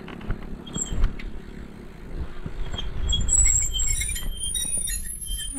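Wind rumbling on a GoPro's microphone as a folding bicycle is ridden, growing louder after a few seconds as the bike picks up speed, with scattered faint clicks and short high-pitched squeaks.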